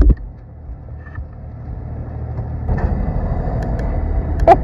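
A small boat engine starts with a sudden burst, then runs with a steady low drone that grows gradually louder.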